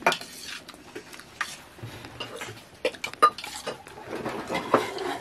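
Metal utensils clinking, knocking and scraping against pots and dishes in irregular, separate strokes, with a sharp knock at the start and a short ringing clink a little past the middle.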